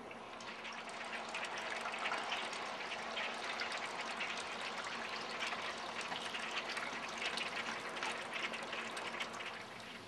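A large flock of small dark birds chattering together, many overlapping chirps and calls merging into a dense, continuous din that swells about a second in and eases near the end.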